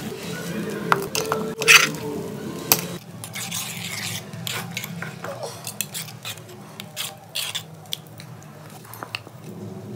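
A metal spoon stirring a thin groundnut, tomato and onion sauce in an aluminium pot, with repeated scrapes and clinks against the pot's sides. Before that, in the first few seconds, a few sharp clicks and knocks.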